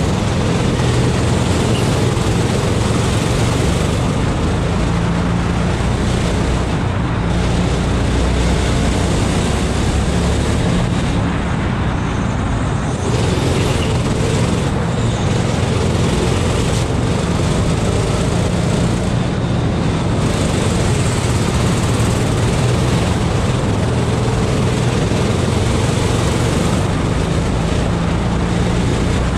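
Go-kart engine running hard on track, its note shifting a little up and down with the throttle, over a steady rush of noise from an onboard camera.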